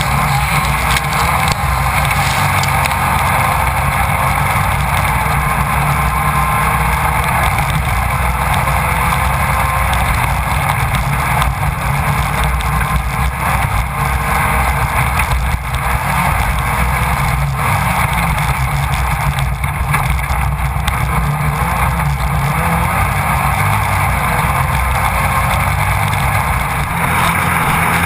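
Engine of a Class 1600 off-road race car, an air-cooled VW-based four-cylinder, running hard at speed, picked up by the onboard camera, with wind noise on the microphone. Occasional knocks from the car crossing rough ground, with a short one about 15 seconds in and a longer dip near the end.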